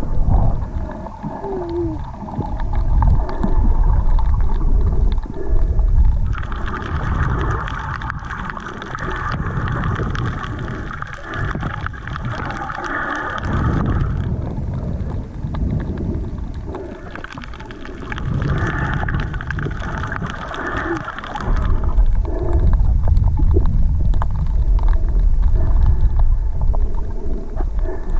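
Underwater sound picked up by a submerged action camera while snorkeling: a muffled, rumbling wash of water moving against the camera. A steadier higher hiss joins in for several seconds in the middle.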